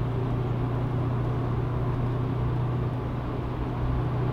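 Steady engine drone and road noise heard inside a car's cabin while cruising at highway speed.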